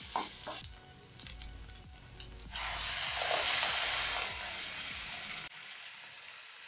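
Water poured into a hot frying pan of browned minced meat and spices, hissing and sizzling as it hits: the sizzle starts suddenly about two and a half seconds in, then drops off sharply and carries on faintly as the pan fills.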